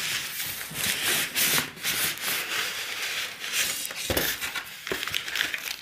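Cardboard packaging and packing material rubbing and scraping as a TV box is opened and the packing pulled out, with a sharp knock about four seconds in.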